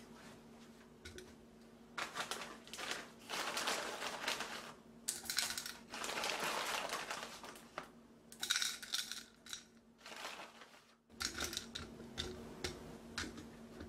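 Chunks of rock sugar tipped into a glass jar of green plums, clattering against the glass and the fruit in about four separate pours. A faint steady hum runs underneath.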